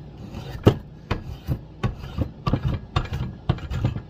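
Spokeshave shaving a wooden axe handle: a quick run of short scraping cuts, about three a second.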